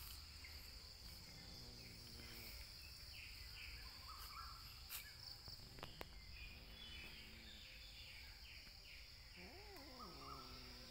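Faint outdoor insect chorus: a steady high-pitched buzzing drone of crickets, with scattered faint chirps and a few soft clicks.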